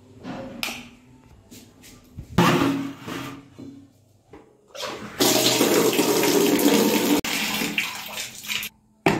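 Water running from a tap into a plastic bucket, steady for about three and a half seconds and cutting off sharply near the end. A wall switch clicks about half a second in, and there is a knock at the very end.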